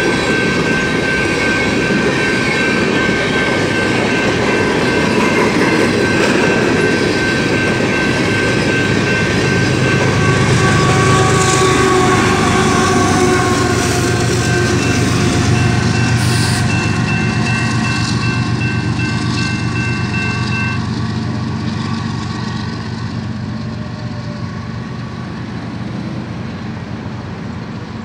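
A BNSF coal train's cars roll past with wheels clattering over the rails. A diesel locomotive at the rear of the train passes about halfway through, and then the sound fades as the train moves away. A grade-crossing bell rings steadily until about three-quarters of the way through.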